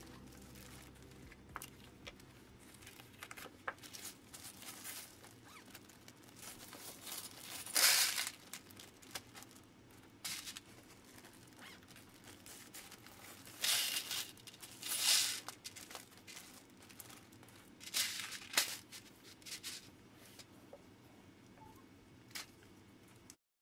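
Plastic bags of LEGO parts crinkling and being torn open, with loose LEGO pieces rattling as they are poured into plastic trays, in several irregular bursts.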